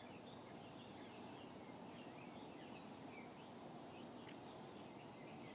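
Faint background birds chirping, many short scattered chirps, over a steady low outdoor noise.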